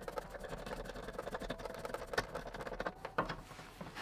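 Screwdriver winding a securing screw on a TV mounting-arm hook against the metal rail: a run of faint small clicks and scrapes, with a couple of sharper ticks about two and three seconds in.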